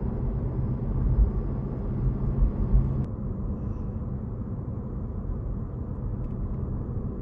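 Steady low road and tyre rumble inside the cabin of a Honda Civic 11th-gen e:HEV driving on the road. This is the wheel-arch and boot noise that the deadening treatment is meant to cut. About three seconds in, a fainter high hiss drops away suddenly and only the low rumble goes on.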